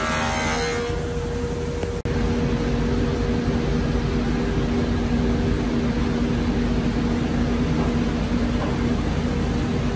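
Steady hum of workshop machinery running, a constant drone over a broad rushing noise, which cuts out for an instant about two seconds in.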